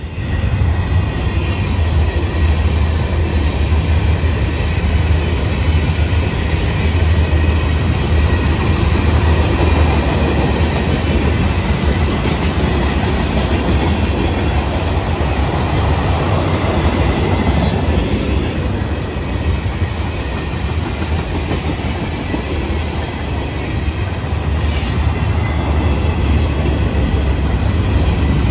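Freight train cars (stack container well cars, gondolas, tank cars and boxcars) rolling past close by: a steady heavy rumble of steel wheels on rail, with a sharp click every few seconds and a faint wheel squeal.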